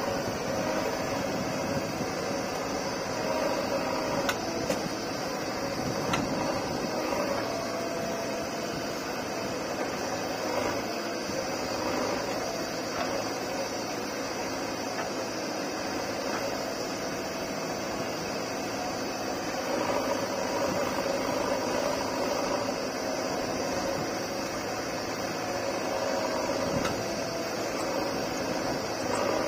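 Diesel engine of a JCB 3DX backhoe loader running steadily while the backhoe digs and loads soil, its note swelling under hydraulic load about twenty seconds in and again near the end.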